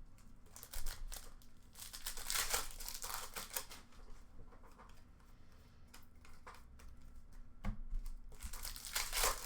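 Hockey card pack wrapper being torn open and crinkled, in two spells of rustling: one from about half a second to four seconds in, and a louder one near the end.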